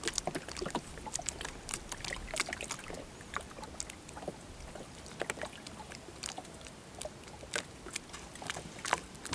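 Water lapping and splashing around a small wooden boat, with many short, irregular splashes and light knocks.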